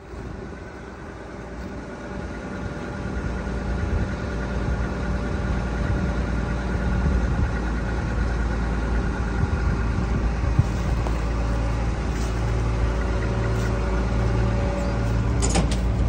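John Deere Turbo 6620 combine's turbocharged diesel engine and machinery running with a steady low drone, getting louder over the first few seconds, with a low pulsing hum coming in near the end.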